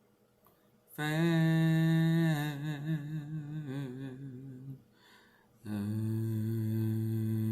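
A woman humming a slow tune in long held notes that step down in pitch, then after a short pause one long, low, steady hum.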